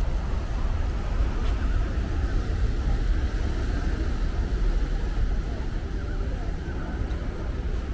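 Wind rumbling and buffeting on the microphone, over a steady wash of surf breaking on the rock shelf.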